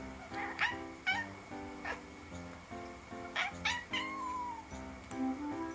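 Brown tabby-and-white cat meowing in a string of about six short calls, the last drawn out and falling in pitch as it yawns; soft background music plays underneath.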